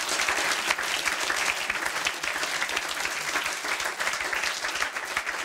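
Large audience applauding, a dense steady clapping.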